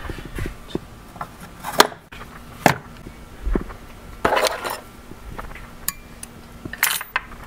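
Metal hand tools (pliers and cutters) clinking and clattering as they are handled and knocked against one another: a string of irregular sharp clinks and knocks, with a denser rattle a little past the middle.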